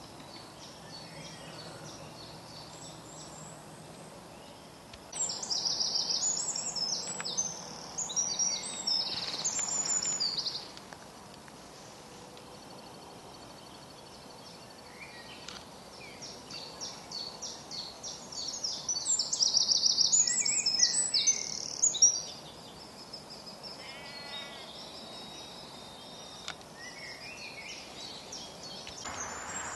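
Birdsong: a songbird sings two long phrases of rapid high notes, one about five seconds in and a longer one starting about fifteen seconds in, over fainter calls of other birds.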